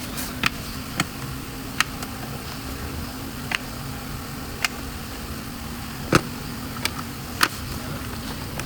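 Workshop work sounds: about eight sharp clicks and knocks at irregular intervals, the loudest about six seconds in, over a steady low hum.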